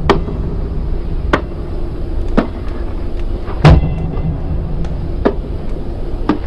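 A basketball bounced slowly on a hard floor, six separate sharp thuds about a second apart, the heaviest a little past the middle, over a low steady hum.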